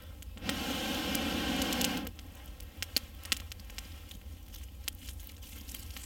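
Campfire crackling, with a few sharp pops about three seconds in. During the first two seconds a louder steady rushing noise runs over it and cuts off suddenly.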